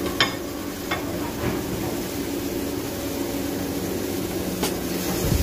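Marlin steak sizzling in a frying pan on a gas stove, with a pot of water boiling beside it. A ceramic plate clinks down on the counter just after the start, with a few lighter knocks after it.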